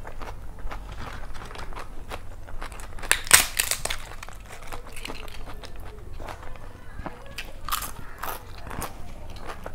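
A crisp papad crackling as it is broken up by hand over a plate of rice, loudest in a burst a little over three seconds in, with close-up crunching and chewing of mouthfuls around it.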